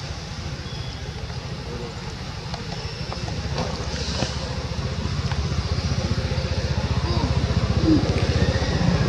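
A motor's low rumble of fast, even pulses, growing louder partway through.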